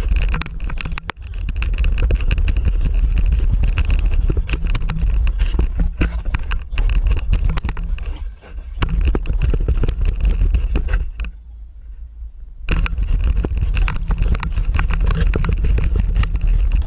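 Loud rumbling wind buffeting and handling noise on an action camera carried in a running dog's mouth, with many small knocks and scrapes against the camera housing. The noise drops away for about a second and a half about two-thirds of the way through, then starts again.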